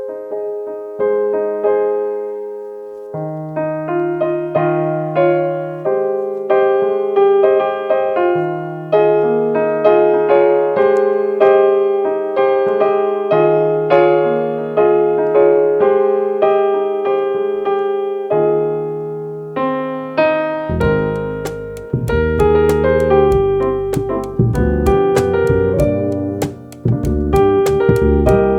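Jazz keyboard playing a solo introduction of slow sustained chords over low bass notes. About three-quarters of the way through, bass and drums come in, with cymbal strokes at a steady beat, and the trio plays together.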